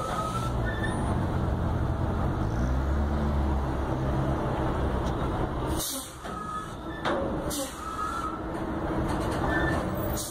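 Diesel engine of a semi-trailer truck running under load as it creeps slowly through a tight turn, getting louder a few seconds in, with a couple of short sharp noises later on.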